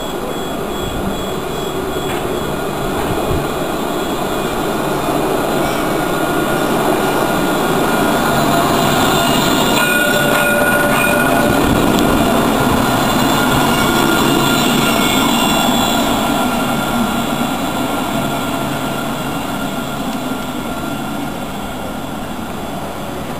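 Alstom Citadis low-floor tram passing close by. Its running noise swells to a peak about halfway through, carrying a steady high whine, then fades as it moves off.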